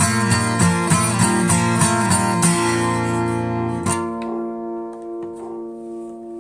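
Guitar played in a steady picked rhythm, ending on a final chord struck about four seconds in and left to ring and fade.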